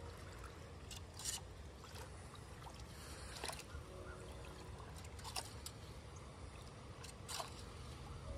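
Water trickling and draining into a storm drain, with a short splashing scrape from a small plastic rake dragging wet leaf muck about every two seconds.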